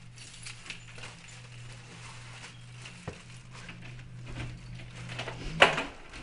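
Keys jingling and scraping at an apartment door lock, with a click about three seconds in and a loud sharp clack of the lock near the end. A steady low hum runs underneath.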